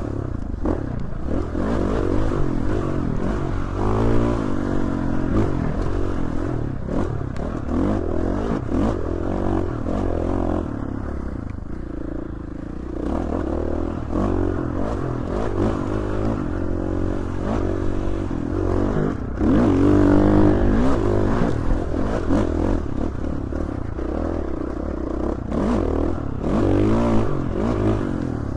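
Dirt bike engine revving up and down over and over as it is ridden along a trail, with frequent knocks and rattles from the bike over rough ground.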